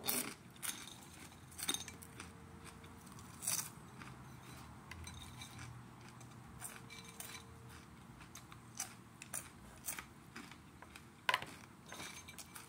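Crunchy chewing of chopped hot peppers, with scattered small clicks and clinks as pieces are picked out of a glass bowl.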